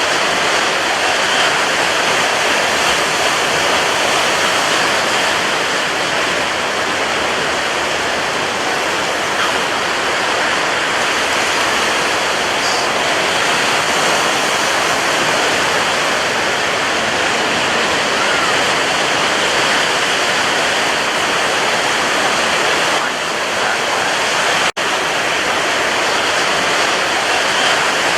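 Sea waves breaking in a steady, continuous wash of surf, with a momentary dropout about three-quarters of the way through.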